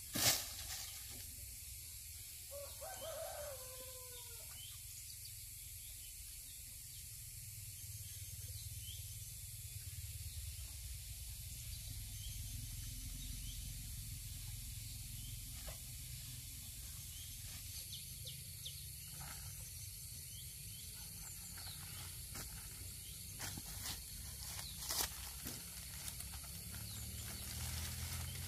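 Outdoor ambience: a steady high hiss over a low hum, with a sharp click just after the start, a short falling call a few seconds in, and scattered light clicks later on.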